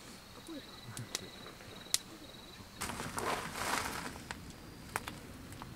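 Crickets trilling in the night, a thin steady pulsing chirr, with a few sharp clicks and a rustle lasting about a second in the middle.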